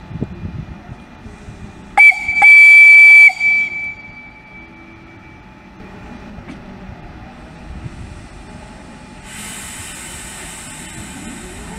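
Czech Railways class 151 electric locomotive sounding its warning horn, a short blast followed at once by a longer one of under a second, as the train starts away. Afterwards the low rumble of the train moving off, and near the end a rising whine of the locomotive's traction motors.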